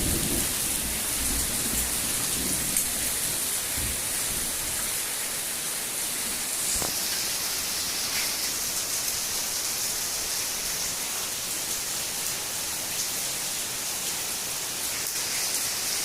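Heavy rain mixed with hail pouring down steadily, with a low rumble of thunder dying away in the first few seconds.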